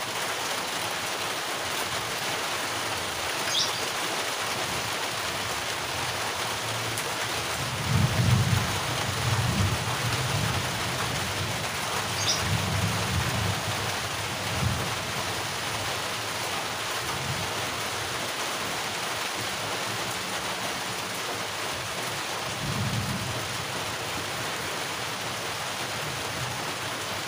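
Rain falling steadily, with low rumbles of thunder about eight seconds in, again a few seconds later, and once more near the end.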